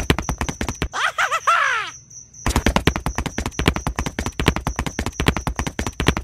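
A fast, even run of sharp clicks over a thin, steady high tone, broken about a second in by a short burst of cawing bird calls, after which the clicking resumes.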